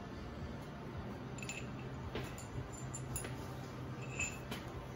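A few faint, scattered clinks of small metal parts and tools being handled, over a low steady hum.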